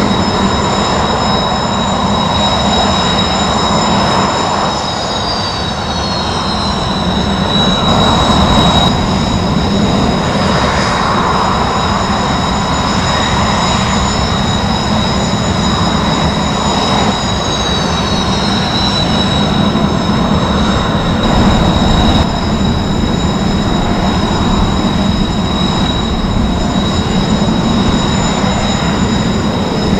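Kawasaki T-4 jet trainers taxiing past at close range, their twin IHI F3 turbofan engines giving a loud, steady high whine over a low rumble. The whine drops in pitch about three times as successive jets go by.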